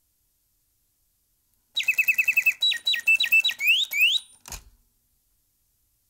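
Blaise Bontems singing-bird automaton chirping with whistled mechanical birdsong: a quick run of about eight short falling chirps, then several longer sliding notes ending in two rising glides. A single low knock follows just after the song stops.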